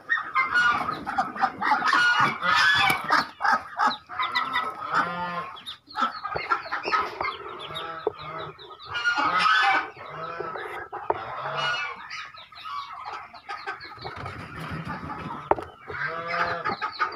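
A brood of Muscovy ducklings peeping constantly, many short high peeps overlapping in a continuous chorus.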